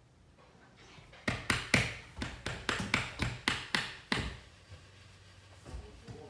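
A crawling baby's hands slapping a bare hardwood floor: a quick run of sharp taps, about four or five a second, that stops a little past the middle, each tap ringing briefly in the empty wood-panelled room.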